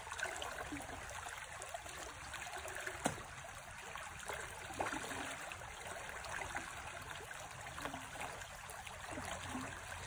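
Shallow river current flowing and trickling, with many small water ticks and splashes. A sharp tap about three seconds in.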